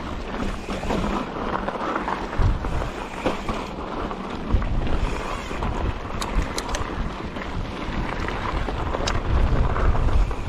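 Mountain bike riding along a dirt trail: tyre and frame rattle over the ground, with wind buffeting the microphone in gusts. A quick cluster of sharp clicks comes a little past the middle, and another click near the end.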